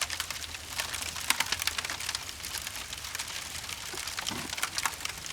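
Water from a toy fire truck's water cannon spattering onto a surface, heard as a dense, irregular patter of small ticks.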